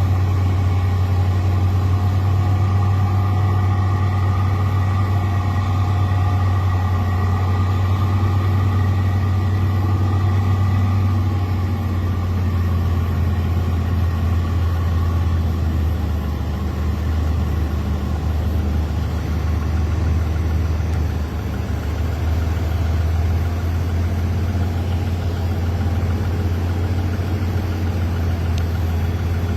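Heavy diesel engine running steadily with a deep drone, its pitch dropping slightly about twelve seconds in.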